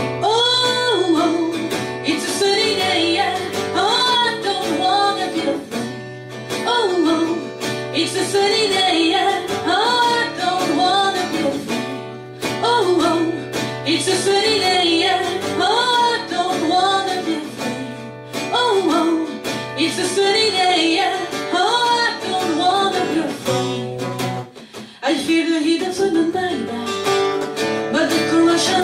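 A live song: a woman singing into a microphone, accompanied by a man playing an acoustic guitar.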